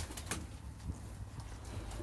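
Quiet pigeon-loft ambience: a sharp click right at the start and a few fainter clicks soon after, over a low background rumble.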